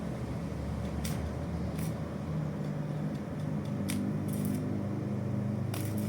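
Steady low mechanical hum, with a few short sharp clicks now and then.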